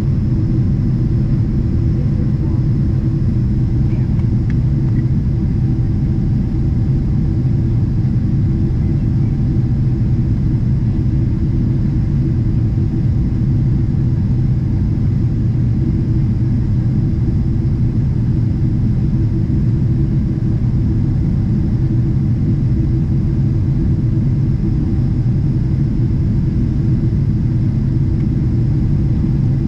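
Steady cabin noise of a Boeing 777-300ER climbing out, heard from the economy cabin: a deep, even rumble of its General Electric GE90 engines and the airflow past the fuselage.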